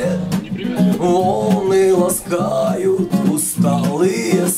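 Music: acoustic guitar strummed under a sung melody, the lead-in to a song.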